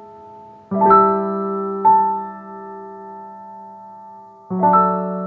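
Slow background piano music: held chords that ring and fade, with a new chord struck about a second in and another near the end.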